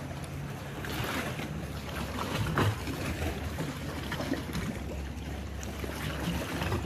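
Canoe gliding on calm sea water: paddle splashes and water sloshing against the hull, with wind on the microphone and a low steady drone underneath. One sharper splash or knock comes about two and a half seconds in.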